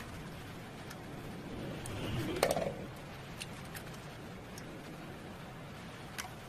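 An egg cracked once against the rim of a metal bowl, a short sharp crack with a crunch about two and a half seconds in, followed by a few faint ticks as the egg is separated by hand.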